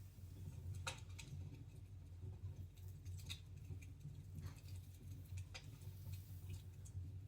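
Wood fire in a fireplace crackling: scattered sharp pops and clicks, a handful in a few seconds, over a low steady hum.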